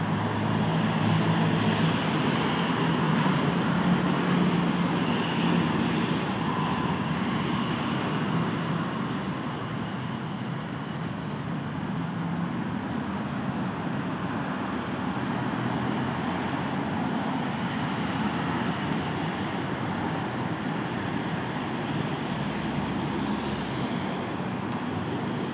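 Steady road traffic noise from passing cars, a little louder in the first several seconds.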